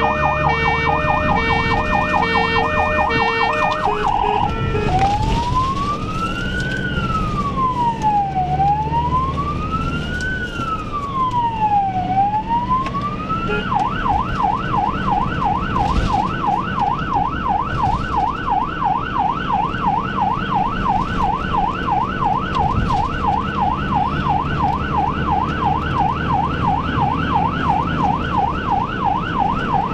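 Ambulance siren on an emergency run, heard from inside the cab over engine and road noise. It starts as a fast pulsing tone, changes about five seconds in to a slow wail rising and falling, and switches about halfway through to a fast yelp sweeping up and down several times a second.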